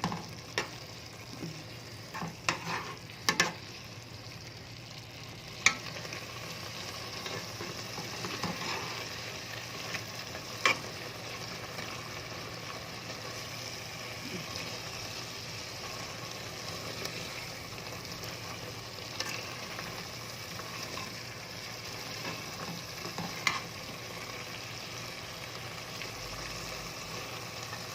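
Meat and tomato juice sizzling steadily in ghee in a cooking pot as the sauce reduces and its water boils off, with a few sharp clicks of a spoon against the pot.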